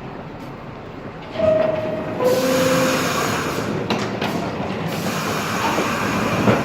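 R62A subway train's door chime sounds two descending tones, then the train pulls out with a loud, steady rush of rail and motor noise. A few sharp knocks come through partway in and near the end.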